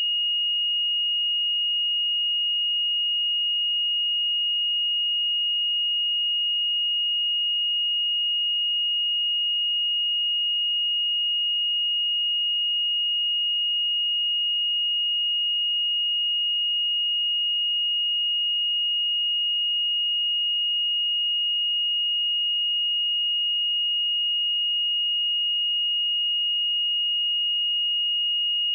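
A pure 2867 Hz sine-wave test tone, one steady high-pitched note held at constant level, with no other sound.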